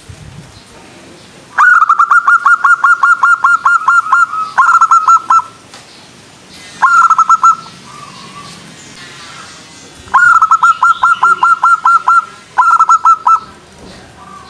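Zebra dove (perkutut) calling: five bursts of rapid, clipped cooing notes, about six a second, the longest burst about two and a half seconds.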